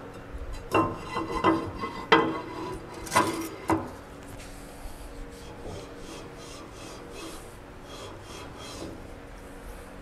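Steel cylinder liner being worked down into its bore in the engine block, with several sharp metal knocks and scrapes in the first four seconds. After that comes a softer, quicker rubbing on the block.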